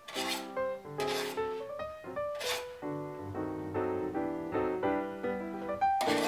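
Background music, crossed by a few short scrapes of a knife trimming excess sweet-pastry dough along the rim of a fluted metal tart ring.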